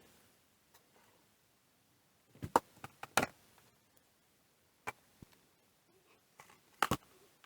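A few sharp clicks and knocks of small parts being handled as the digital microscope is put back together, in a cluster about two and a half seconds in, a single one near five seconds and a pair near the end.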